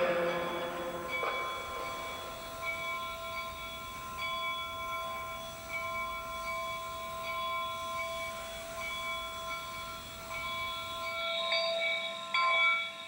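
Steam locomotive whistle blowing one long, steady chord of several tones, with a few short breaks. A couple of short noisy bursts follow near the end.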